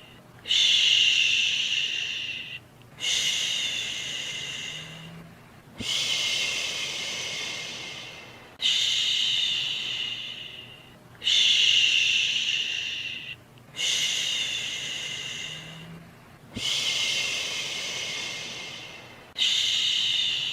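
A person's soothing 'shhh' shushing sound for calming a baby, repeated eight times, each one starting strongly and fading away over two to three seconds.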